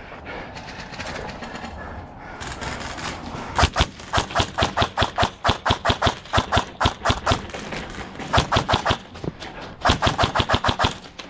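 Airsoft guns firing in quick strings of shots, about six a second, in three volleys over the second half.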